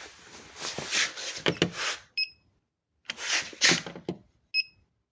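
Bursts of handling and rustling noise, with two short electronic beeps about two and a half seconds apart.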